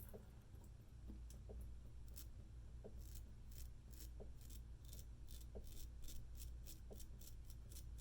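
Straight razor scraping through lathered stubble in a run of short, faint strokes, about two or three a second.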